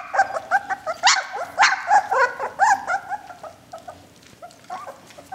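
Young puppies yipping and whining as they eat their first solid food, a quick run of short high squeaks several a second that dies down after about three seconds, with a few more near the end.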